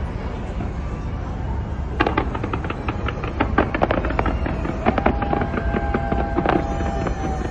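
Fireworks going off: a steady low rumble, then from about two seconds in a rapid run of sharp cracks and pops.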